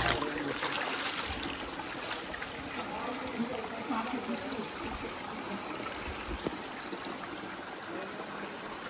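Shallow rocky stream trickling over stones: a steady hiss and babble of running water.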